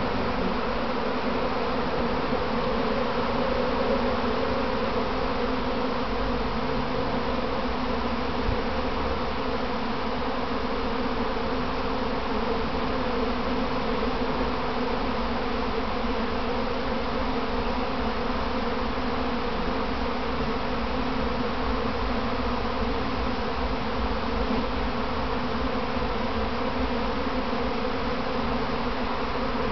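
Steady, dense drone of a honeybee swarm in flight: thousands of honeybees flying around and settling on their hive, a constant pitched hum with a second, higher hum above it.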